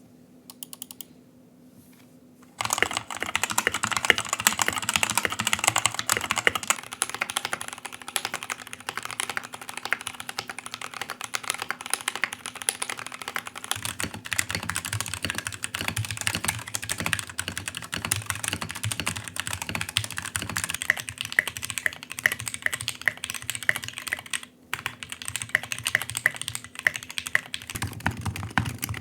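Fast typing on mechanical keyboards: a dense run of key clacks. About 14 seconds in the clacks take on more low end. After a brief pause near the end the sound changes again.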